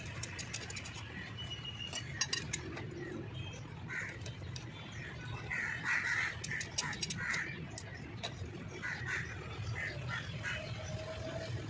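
Birds calling again and again in short squawks, over a steady low hum, with a few sharp metallic clicks of a socket wrench being turned on a bolt of a truck's wheel hub.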